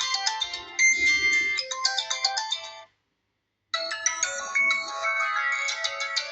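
Phone ringtones playing: one melody of short electronic notes stops about three seconds in, and after a brief silence another ringtone melody begins.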